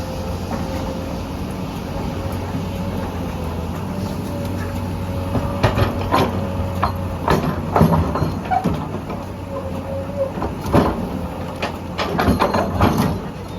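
SANY SY210 excavator's diesel engine running steadily. From about halfway in comes a series of sharp knocks and clanks, loudest near the end.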